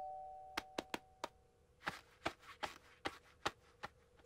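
Soft cartoon footstep taps: four quick ones about half a second in, then five slower, softer ones. A chime's ring fades out under the first second and a half.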